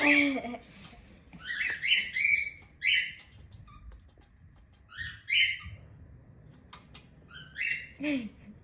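Cockatiel calling: a series of short chirping calls, mostly in pairs, each sliding upward and then holding, repeated every second or two.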